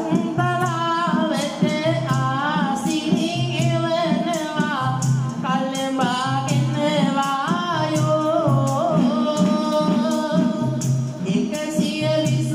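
Sinhala viridu sung poetry: one voice sings a long, winding, ornamented melodic line, accompanied by a hand-held frame drum beating about once a second with jingling strokes.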